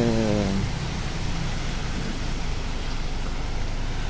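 Steady hiss of falling rain, even and unbroken, after a brief bit of a man's voice at the start.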